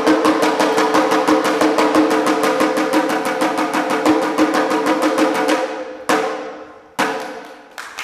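Fast, even drum roll on a double-headed drum, about seven strokes a second over a steady ringing tone, stopping about five and a half seconds in. Three single strikes follow, each dying away.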